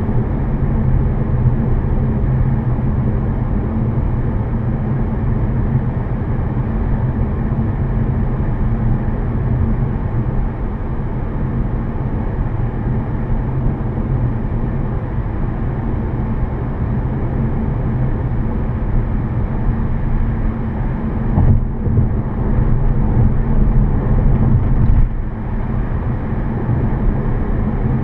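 Steady cabin noise of a 2014 Volkswagen Passat 1.8T under way on a back road: a low engine drone mixed with tyre and road noise. It swells a little for a few seconds past the middle, then drops back suddenly.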